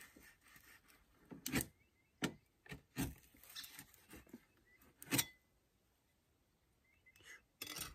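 Scattered scrapes and clicks of a hand tool working at sticky butyl sealant around a caravan hatch frame, with a quiet spell a little past the middle.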